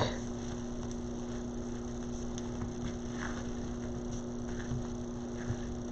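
A steady electrical hum with a few faint, soft ticks.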